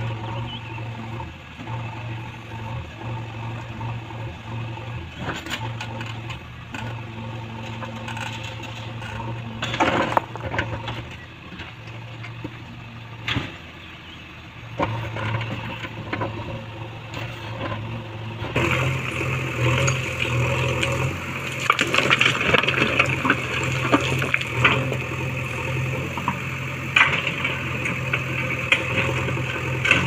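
JCB 3DX backhoe loader's diesel engine running steadily while its bucket digs and shifts loose rocks, with scattered knocks of stone on stone. About two-thirds of the way in the sound gets louder, with frequent rock clatter over the engine.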